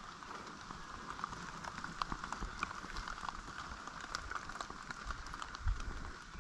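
Wind rumbling unevenly on an action camera's microphone, over a soft hiss scattered with many small ticks.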